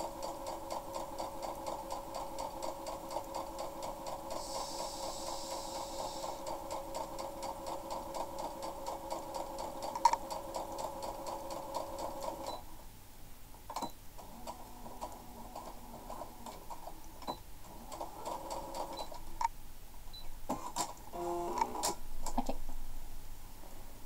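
Small electric home sewing machine stitching steadily, a fast even pulse of the needle, for about twelve seconds and then stopping abruptly. After it, scattered light clicks and knocks.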